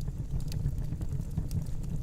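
Wood fire burning in a fireplace: a steady low rumble of the flames with a few sharp crackles and pops scattered through it.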